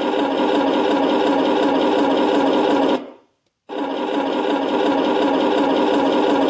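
Simulated tank engine running, played by a Henglong RC tank's sound unit through its small speaker. It cuts out suddenly about three seconds in and comes back under a second later, as the engine-sound volume setting is stepped with the transmitter's volume button.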